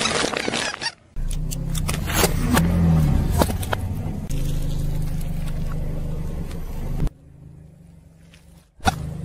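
A car engine running slowly as its tyre rolls over things, with crackling and crunching as an aluminium drink can is squashed under it. A single sharp crack comes near the end as a small brittle object breaks under the tyre.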